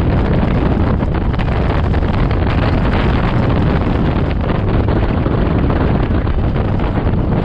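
A BMW F650GS motorcycle being ridden, with steady, heavy wind buffeting on the microphone over the running engine.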